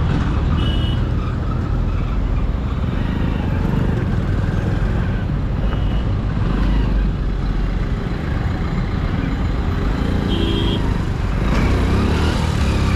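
Hero Splendor Plus's small single-cylinder engine running at riding speed in traffic, under a steady rumble of road and wind noise. Short horn beeps sound about a second in, near the middle, and about ten seconds in.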